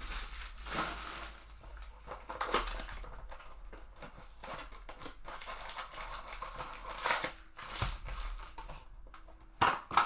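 Hands rustling and crinkling trading-card packaging and sliding cards, with a sharp snap near the end, as a baseball card blaster box and its packs are handled.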